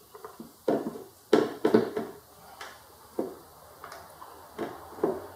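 Irregular knocks and clicks of hard plastic parts being handled on an ATV: an air filter box and a hose with its clamp being worked back into place. A quick cluster of sharp knocks comes in the first two seconds, then a few scattered ones.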